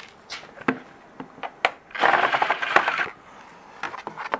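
A few light clicks and taps of screws and a tool being handled, then about a second of rapid clattering from a cordless DeWalt impact driver backing a screw out of a sheet-metal panel, starting about two seconds in.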